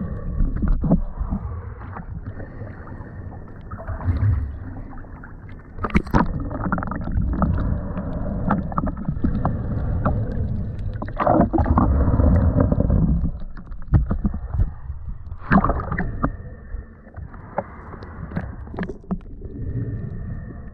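Muffled water sloshing and splashing over a low rumble, with sharper splashes about six seconds in, again around eleven to twelve seconds, and near sixteen seconds.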